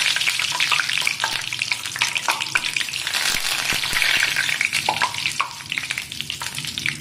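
Curry leaves frying in hot oil in a kadai: a dense sizzling hiss full of small crackling pops, easing a little after about five seconds.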